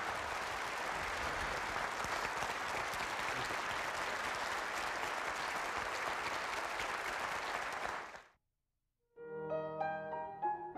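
A large audience applauding steadily; the applause fades out about eight seconds in. After a brief moment of silence, piano music starts near the end.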